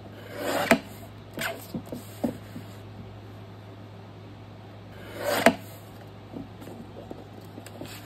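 Lever-arm guillotine paper trimmer cutting paper twice, once just before a second in and again about five and a half seconds in. Each cut is a short shearing swish that ends in a sharp snap as the blade arm comes down. Between the cuts come a few lighter clicks of the arm and paper being handled, over a steady low hum.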